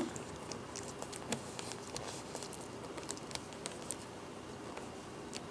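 Faint, scattered small clicks and light taps at irregular intervals from hands handling the laptop's parts during repair.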